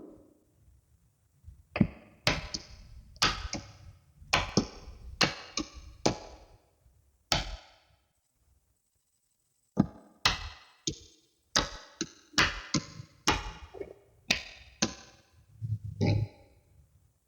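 Small magnetic balls snapping together one after another in sharp clicks, about one or two a second, with a pause of about two seconds midway.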